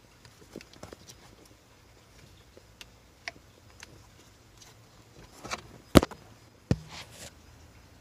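Small plastic clicks and rustles as a wiring-harness connector is worked onto a Honda Odyssey ignition switch. A loud, sharp click about six seconds in is the connector latching home, followed shortly by a second knock.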